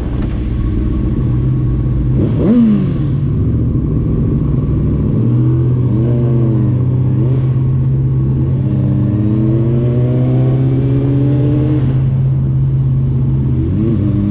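Sport motorcycle engine and road noise heard from the rider's helmet camera, with a steady low engine drone. The engine note rises and falls in pitch as the bike throttles and shifts: a sharp blip about two and a half seconds in, a few short rises and drops around six to seven seconds, then a slow climb in pitch before it drops again near the end.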